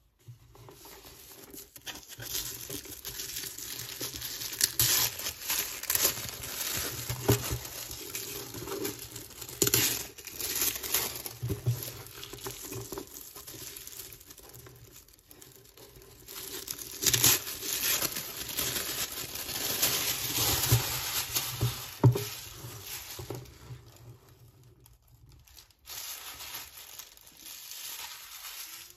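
Thin white wrapping paper and its tape being torn off a boxed figure and crumpled, a long run of crackling and rustling with several louder rips, lighter crinkling near the end.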